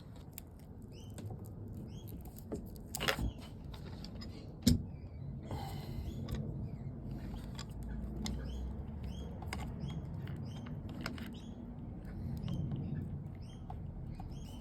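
Knocks and clicks from hand work bending and fitting the winch cables, the loudest a sharp knock about four and a half seconds in, with small birds chirping repeatedly in the background.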